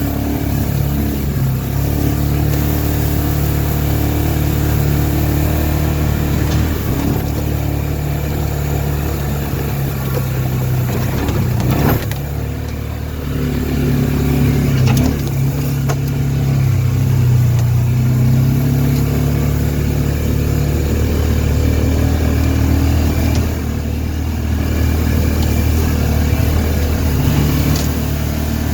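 Side-by-side utility vehicle's engine running under way, its pitch easing off and picking up again several times with speed changes.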